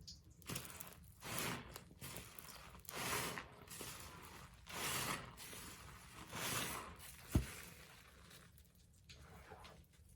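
A sponge soaked in purple Pine-Sol being squeezed, giving wet, foamy squelches in four swells a little under two seconds apart, with a single sharp click about seven seconds in.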